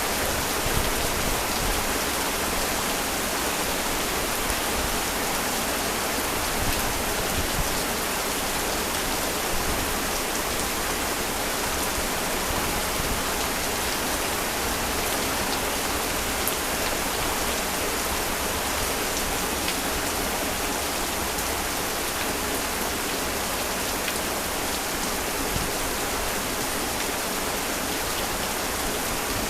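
Heavy rain falling steadily, a dense even hiss with many fine drops pattering on surfaces.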